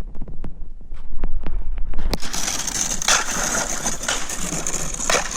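Thin river ice cracking and crunching against a kayak's hull: a few separate sharp cracks, then about two seconds in a dense, continuous crackling and crunching as the kayak breaks through the ice sheet.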